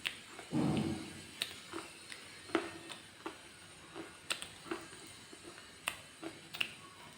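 Pieces of dry red shale crunching and cracking up close: a string of sharp, irregular cracks about every half second, with a duller, louder crunch about half a second in.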